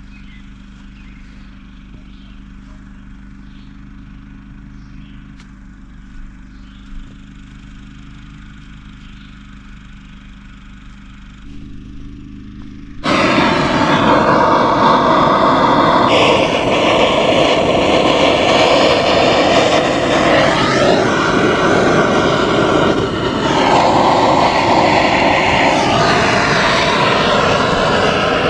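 Handheld gas torch burning with a loud, steady roar, its flame aimed into split firewood to light it. The roar comes on suddenly about 13 seconds in, after a low, steady hum, and its tone shifts a few times as it goes on.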